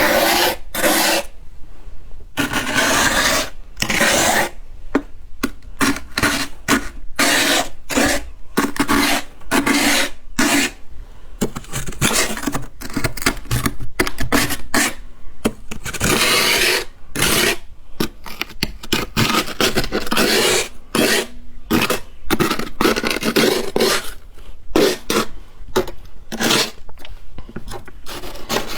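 Freshly formed freezer frost, grown with a humidifier, being scraped in many short, irregular strokes with brief pauses between them.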